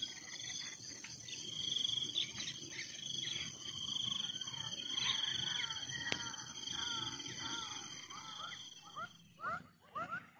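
Wildlife chorus: insects trilling steadily at a high pitch, with short rising chirping calls scattered through it that turn into a quick, regular series near the end, over a low rumble.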